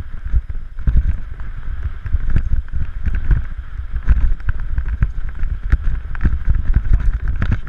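Heavy rumbling wind buffeting the microphone, mixed with a steady hum and many short knocks and clatters.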